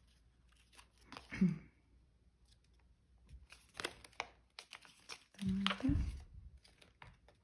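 Paper rustling and crinkling in short, scattered bursts as glued paper fruit slices are folded and pressed together by hand. Two brief murmurs from a woman's voice, about a second and a half in and again near six seconds, are the loudest sounds.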